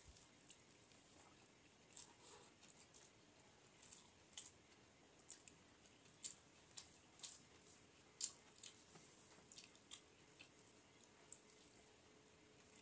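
Fingers mixing rice with curry gravy on a metal plate: faint, scattered wet squishes and small clicks.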